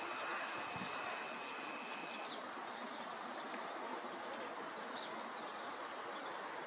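Outdoor ambience: a steady background hiss with a few short, high bird chirps scattered through it. A thin, steady high-pitched whistle is held for about the first two seconds, then stops.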